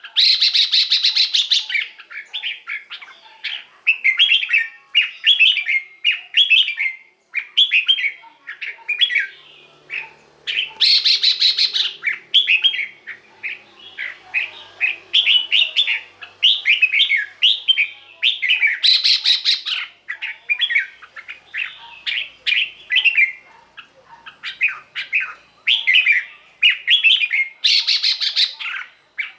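Red-whiskered bulbul singing continuously in quick, bubbling whistled phrases. About every eight seconds, four times in all, a harsher rapid rattling burst breaks in.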